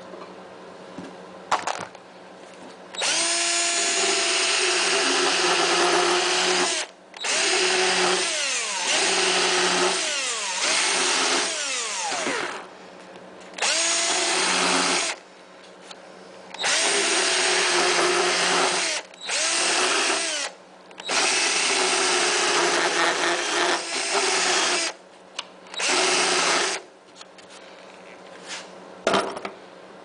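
Cordless drill running in about eight bursts of a few seconds each, cutting the mounting hole for a 12-volt power socket through a mower's plastic dash console. Its pitch sags at times as the bit bites.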